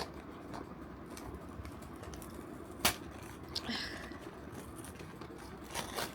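Cardboard blind boxes being handled and opened by hand: a few sharp clicks and taps, with a short crinkling rustle about four seconds in.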